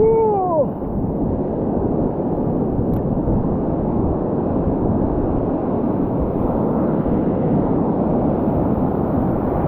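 Steady rush of breaking ocean surf washing around the feet, with wind buffeting the microphone. A brief voice-like pitched sound comes right at the start.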